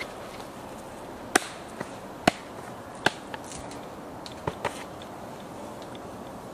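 Several sharp clicks and knocks, scattered irregularly and the loudest in the first half, over a steady background hiss.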